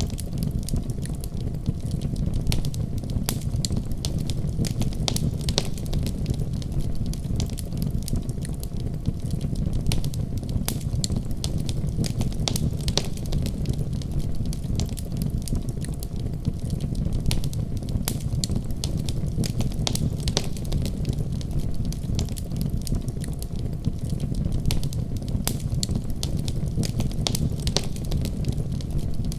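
A fire in a fireplace crackling steadily, with frequent sharp, irregular pops over a low, even rumble.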